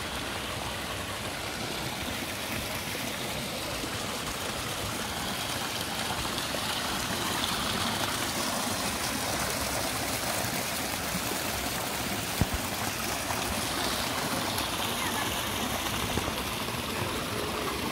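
Water pouring from carved stone fountain spouts into a pond: a steady splashing rush, louder through the middle. A single sharp click about two-thirds through.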